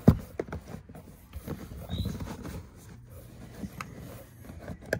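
Rubber liner being handled and pressed into a Tesla Model Y's door pocket: a sharp knock just after the start, then scattered light clicks and rubbing.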